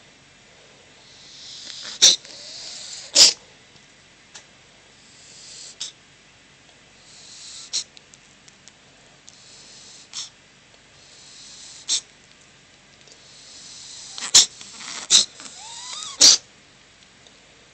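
A kitten sneezing over and over, about nine sharp sneezes one to two seconds apart. Each comes after a short breathy intake, and the loudest are a quick run of three near the end.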